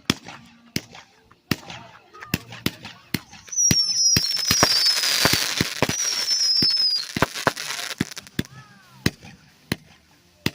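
Fireworks going off: sharp firecracker bangs throughout. From about three and a half seconds in to about seven and a half seconds, a dense crackling hiss is joined by several high whistles falling in pitch.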